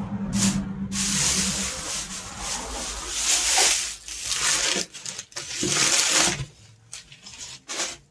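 Handling noise: rustling and rubbing in irregular bursts, with short pauses between them, from packaging or the microphone being handled.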